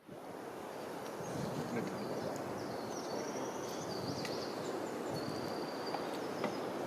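A few high, thin, drawn-out bird calls, mostly in the middle of the stretch, over a steady rushing background noise.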